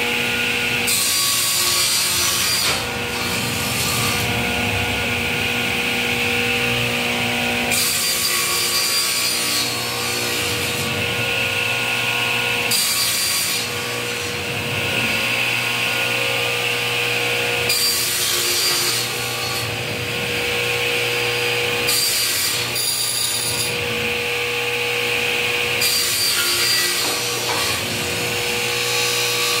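Sliding table saw running steadily, its blade cutting through an MDF panel in about six separate cuts of one to a few seconds each, as the corners are trimmed off a square panel.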